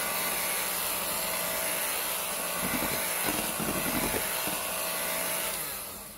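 Electric hand mixer running steadily, its beaters whirring through runny cake batter in a glass bowl, then winding down and stopping near the end.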